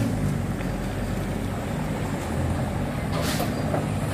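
Mitsubishi Fuso light truck's diesel engine running steadily as the truck creeps forward through the mud, with a short hiss about three seconds in.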